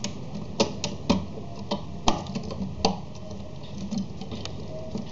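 Plastic construction-kit pieces clicking and knocking as a perforated beam is pressed onto a toy car's frame: about six sharp clicks in the first three seconds, then fainter taps.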